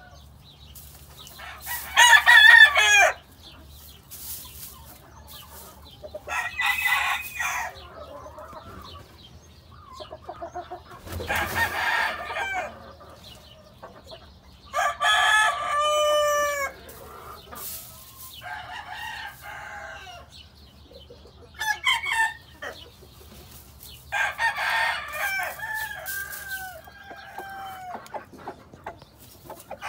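Gamecock roosters crowing over and over, about seven crows spread through, each lasting a second or two, the loudest about two seconds in.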